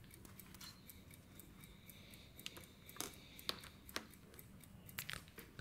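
Faint room tone with a few light clicks and taps, about half a second apart in the second half, as a plastic tube of luminous powder is handled and set down on a bench mat.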